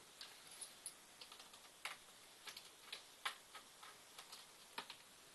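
Faint, irregular clicks and taps of a small Phillips screwdriver and hands working the plastic case of a laptop, while the screws at the screen hinges are removed.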